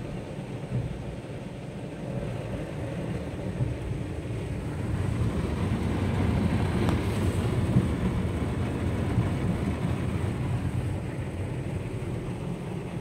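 Automatic car wash working over the car, heard from inside the cabin: cloth wash strips and rotating brushes scrubbing the bodywork with water spray, a steady rumbling wash noise that grows a little louder after about four seconds.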